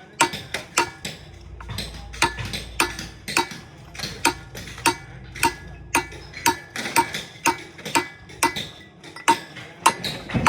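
Hammer striking the metal of an electric motor being torn down: quick, somewhat uneven blows, about three a second, each with a short metallic ring.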